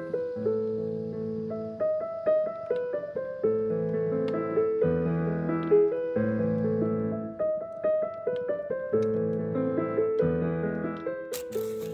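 Background solo piano music, held chords under a melody of single struck notes. A brief rustling noise comes in near the end.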